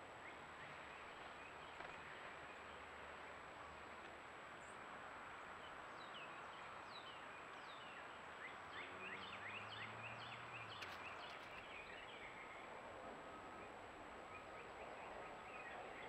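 Faint steady hiss with a thin, constant high whine; from about six seconds in a wild bird sings a run of quick downslurred notes for several seconds, then falls quiet.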